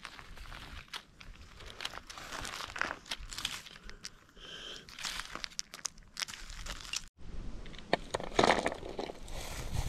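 Dry leaf litter rustling and crunching as hands rummage through it, picking up small hard lumps. The sound breaks off about seven seconds in, and the crackle of dry bark being handled follows.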